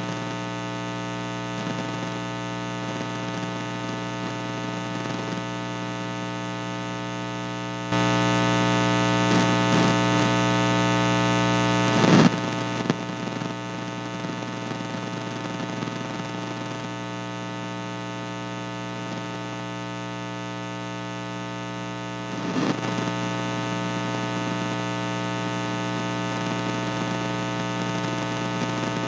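Steady electrical mains hum, a buzz with many overtones over light hiss. About a third of the way in it jumps louder for a few seconds, then drops back with a short crackle, and it rises a little again later on.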